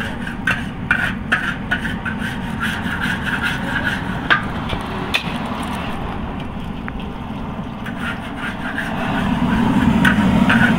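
A metal spatula scraping and knocking against a steel wok as rice is stir-fried, in repeated short strokes that thin out midway and pick up again near the end. Under it runs a steady low rumble that grows louder toward the end.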